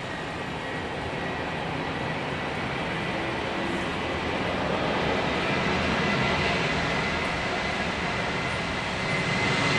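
Jet engines of an Airbus A330-202 airliner moving slowly on the runway: a steady rush with a thin high whine. It grows louder through the middle and again near the end as a second jet airliner taxis past close by.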